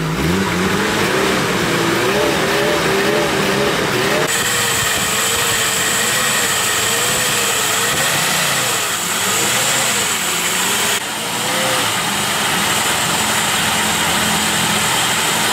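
1986 Nissan Hardbody pickup's engine running after being brought back to life, its pitch rising and falling repeatedly as the throttle is worked.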